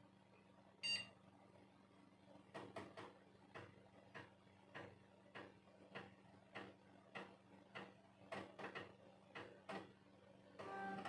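A short electronic beep about a second in, then a run of faint clicks, about two a second, over a low steady hum.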